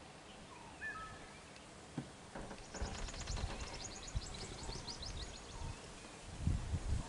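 Wild birdsong: a short whistled call about a second in, then a rapid trill of high chirps for about two seconds in the middle. Low thumps on the microphone rise near the end and are the loudest part.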